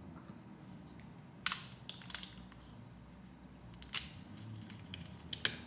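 Plastic Lego Technic pieces being handled and clicked: a few sharp light clicks about a second and a half in, another around two seconds and four seconds, and a quick run of clicks near the end, over a faint low hum.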